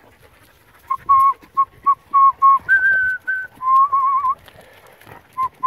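A person whistling a tune: a run of short notes from about a second in, a higher held note around three seconds, then a wavering, trilled phrase.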